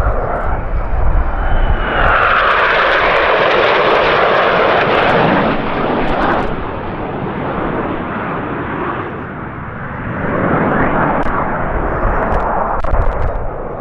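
Formation of F-5E Tiger II jets, each with two J85 turbojets, passing overhead. The jet roar swells about two seconds in, eases after about six seconds, and builds again near ten seconds.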